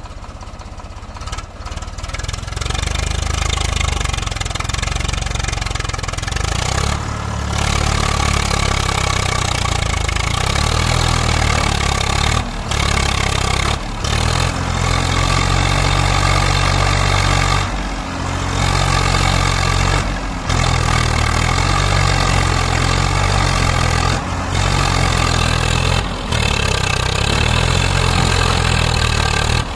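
Swaraj 744 FE tractor's diesel engine working hard under load as it drags a stuck loaded trailer free. The engine picks up about two seconds in, then drones steadily with several brief dips.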